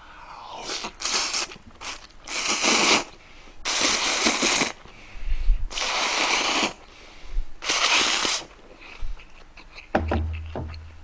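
A man slurping cold noodles from icy broth with chopsticks: a few quick slurps, then four long, drawn-in slurps of about a second each.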